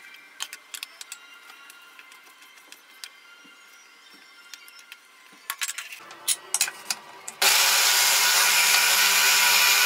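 A knife tapping faintly on a wooden cutting board as raw chicken breast is cut into chunks. About three-quarters of the way in, a small electric food processor starts suddenly and runs steadily, mincing the chicken.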